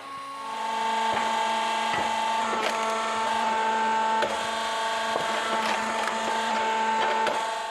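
Hydraulic wood splitter running with a steady motor and pump whine while the log cracks and splinters, several sharp cracks at irregular intervals.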